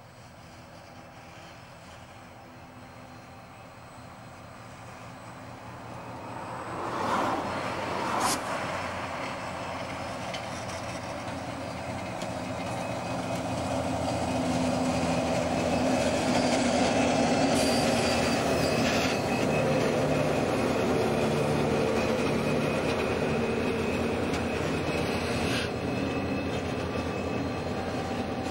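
Diesel-electric locomotive approaching and passing while hauling a passenger train: its engine drone builds, then the carriages rumble by on the rails. Two sharp sounds come about seven and eight seconds in.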